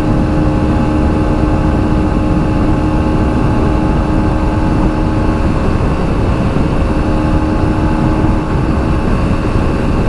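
Aprilia SX125's single-cylinder 125 cc engine running at a steady high pitch at full throttle at highway speed, under heavy wind rush on the microphone.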